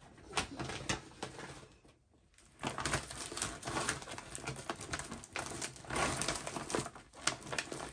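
Clear plastic stamp and die packaging rustling and crinkling as it is handled, in irregular bursts with a short pause about two seconds in.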